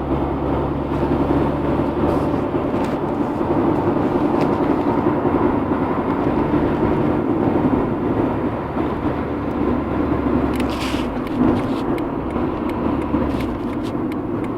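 Honda Integra DC2 running on the road: steady engine and road noise with a few irregular knocks. The owner traced the knocking to a worn half shaft combined with an aftermarket driveshaft.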